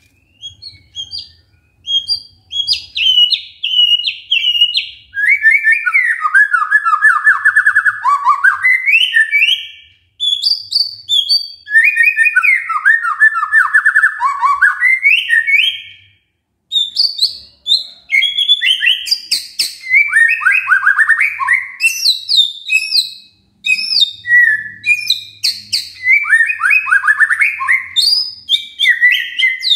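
White-rumped shama (murai batu) singing a long, varied song of whistled phrases and fast trills that fall in pitch, broken by three short pauses.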